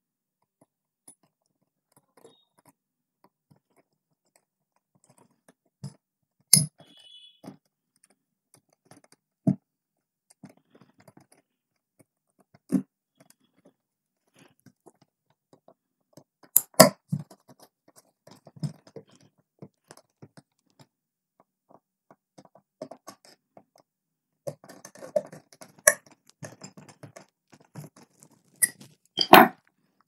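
Sparse clicks, taps and small scrapes of wires being worked into the terminals of a plastic electrical switchboard, with a screwdriver tightening the terminal screws. The sharpest clicks come about 6 and 17 seconds in, and a short run of rustling and scraping comes a few seconds before the end.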